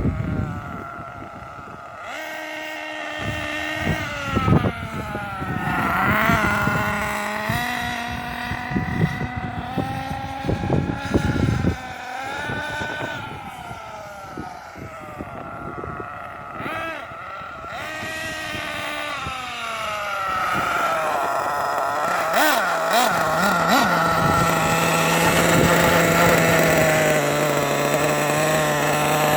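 Losi 8IGHT-T 1/8-scale RC truggy driving, its motor revving up and down again and again, with knocks and low wind rumble on the microphone in the first half. It settles to a steadier note near the end.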